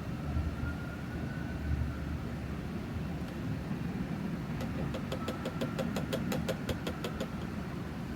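Fresh motor oil being poured from a quart bottle into the oil filler of a Honda CBR650F engine. Midway comes a quick run of glugs, about five a second, over a steady pouring rush.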